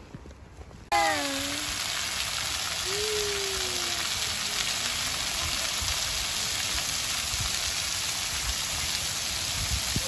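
Water jets of an illuminated fountain falling and splashing onto the basin and wet paving, a steady hiss that starts abruptly about a second in.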